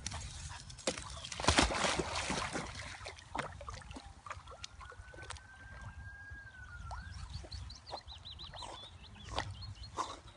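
A cocker spaniel splashes into a pond about a second and a half in, the loudest sound, then swims with faint sloshing of the water.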